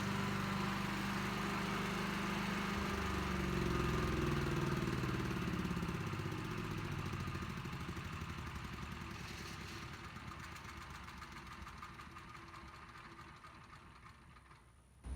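Stump grinder engine running, its pitch dropping a few seconds in as the revs come down, then growing steadily fainter.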